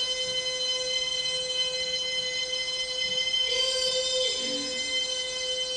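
A steady buzzing tone held at one pitch without a break, from the soundtrack of a video-art installation, with a hissy swell rising over it about three and a half seconds in.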